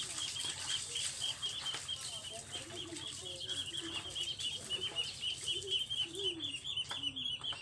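Small bird chirping rapidly and steadily, about five high chirps a second, with faint lower calls underneath.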